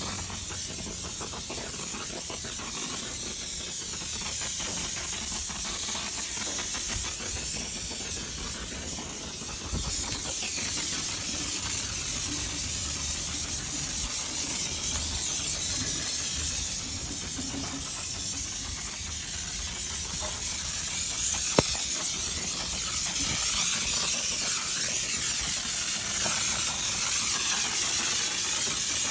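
Car-wash spray wand hissing steadily as it sprays degreaser onto a bare LS engine block.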